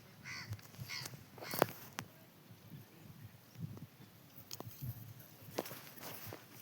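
A bird calling a couple of times with short calls in the first second, then scattered sharp knocks and clicks over low background noise.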